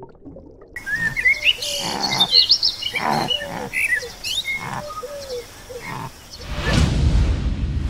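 Birds chirping and calling in short, quick gliding notes, starting about a second in. Near the end a louder rushing noise takes over.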